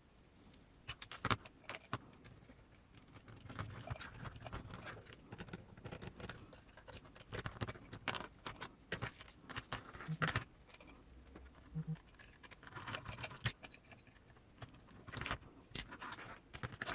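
Small hardware being handled in hand assembly of RC crawler suspension links: irregular light clicks, taps and rattles of screws, lock nuts and link parts, with soft handling noise between them.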